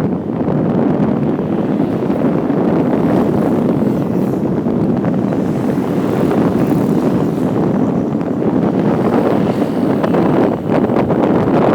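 Steady wind rumble buffeting the microphone, over the running of a trail motorcycle.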